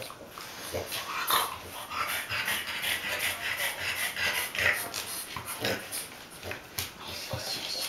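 A French bulldog breathing with wheezy snorts while a hand brush is drawn through its short coat in repeated strokes.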